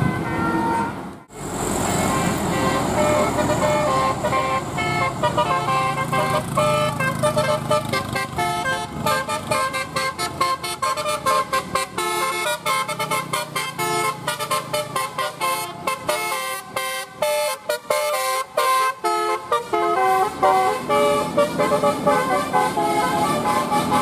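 A bus's basuri telolet horn, a multi-note musical air horn with roof-mounted trumpets, playing a fast melody of short notes. There is a sudden break about a second in.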